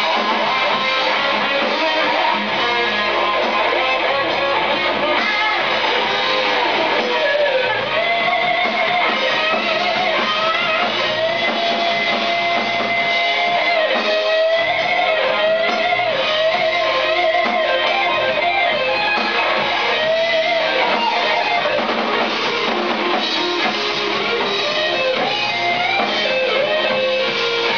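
Live rock band playing, led by an improvised electric guitar solo: held lead notes that bend and waver in pitch, over bass guitar and drum kit.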